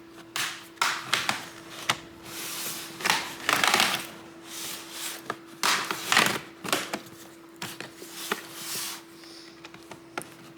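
Plastic pry tool scraping and levering along the seam of a laptop's plastic bottom cover, with irregular sharp clicks and snaps as the cover's retaining clips pop free.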